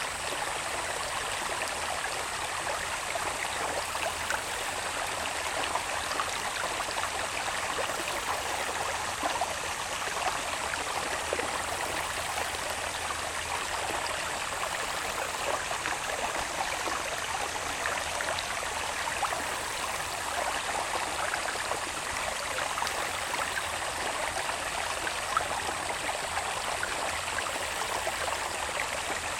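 Water babbling steadily along a small irrigation channel running down from the hills into the fields. A thin, steady high tone sits above it, typical of insects calling in the grass.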